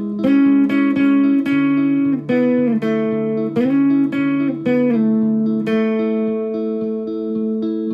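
Background guitar music: plucked, held guitar notes, some sliding up or down into the next pitch.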